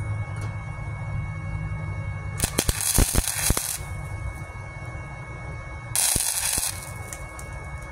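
Flux-core wire welder (Titanium 125 Easy Flux running .030 flux-core wire) laying spot welds on a thin 1/16-inch sheet-metal patch: two bursts of arc crackle, the first about two and a half seconds in and lasting over a second, the second shorter about six seconds in. A steady low hum runs between them.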